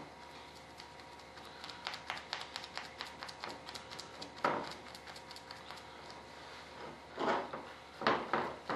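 Quick light taps, then louder scraping strokes about three a second near the end, as a gloved hand and a small tool work carbon-fibre cloth down into a mold during a layup.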